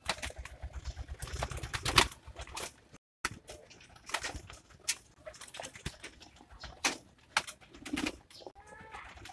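A flock of racing pigeons feeding: many quick, irregular taps of beaks pecking grain, mixed with wing flutters, and a low pigeon coo about eight seconds in.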